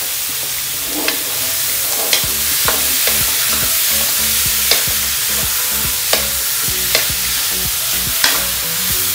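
Diced pork sizzling in oil in a stainless steel wok as a wooden spoon stirs it, the spoon knocking against the pan now and then, about eight times. The raw pork is being sautéed with garlic, ginger and onion.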